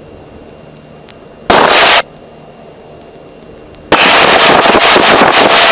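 Cessna 150 cockpit noise through the headset intercom: the engine and wind noise cut in loudly and abruptly twice, briefly about a second and a half in and again from about four seconds in, as the voice-activated mic opens. Between the bursts it drops back to a lower steady hum.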